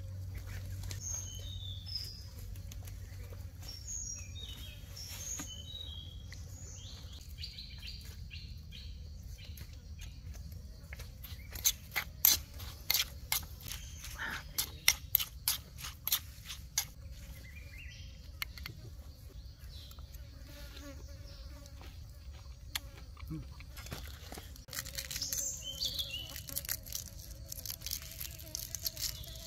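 Birds chirping in short calls over a steady insect buzz, with several seconds of sharp clicks and knocks about midway, the loudest sounds here.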